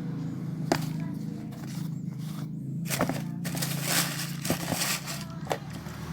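Handling noises from unboxing a pair of shoes: a few sharp taps and clicks and a stretch of rustling about three seconds in, over a steady low hum.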